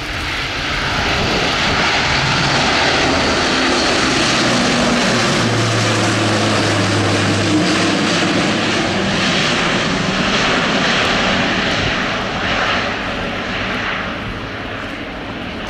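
Airbus A400M's four TP400 turboprop engines at take-off power as the aircraft climbs out just after lift-off, a loud, steady propeller roar with a low drone underneath. It swells over the first two seconds and fades over the last few as the aircraft banks away.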